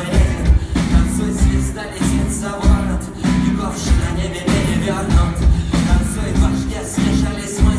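Rock band playing live through a concert PA, with drums, bass, electric and acoustic guitars and keyboards. The kick drum hits at a steady beat and no words are sung.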